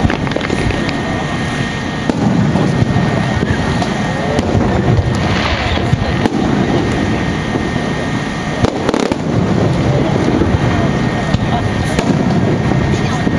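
Aerial fireworks shells bursting overhead: scattered sharp bangs over a steady din of crowd voices.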